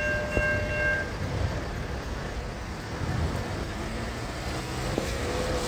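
Steady road and traffic noise on wet pavement at a railroad grade crossing. A steady chord of tones from the crossing area cuts off about a second in.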